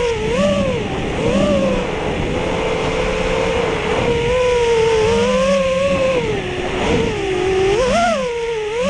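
FPV racing quadcopter's brushless motors (BR2205 2300KV) whining, the pitch rising and falling again and again as the throttle changes, over a steady rushing noise.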